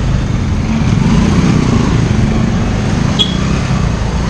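Motorbike engine running steadily at low speed in street traffic, with a brief high chirp about three seconds in.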